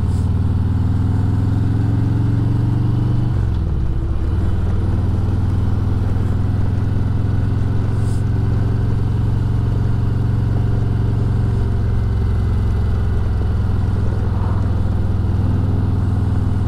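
Harley-Davidson Road Glide Ultra's Milwaukee-Eight V-twin running steadily under way on the road, with a brief drop and recovery in engine pitch about three and a half seconds in.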